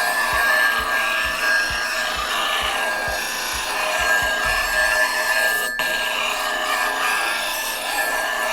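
A woodturning gouge being sharpened: a steady abrasive scraping with a high whine, and soft rhythmic strokes about three a second for the first half.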